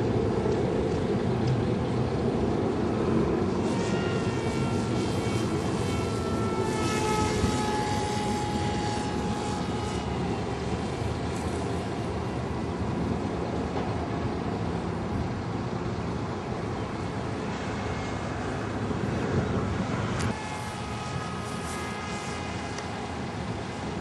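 Foam Mugi RC delta-wing plane flying: a steady rush of motor and propeller noise with a faint whine that slides down in pitch several seconds in. The sound drops in level about 20 seconds in.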